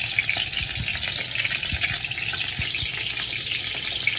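Chicken wings frying in shallow hot oil in a frying pan: a steady sizzle with many small crackling pops.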